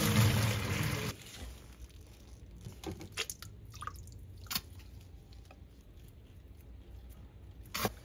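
Water poured from a steel pot into a plastic bowl in a sink, splashing loudly for about the first second. After that come quieter handling sounds with a few light clicks, including one just before the end.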